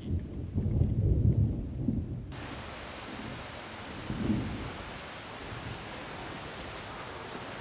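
Muffled thunder rumbling low for about two seconds, then heavy rain pouring down steadily, cutting in suddenly. A further low rumble of thunder comes about four seconds in.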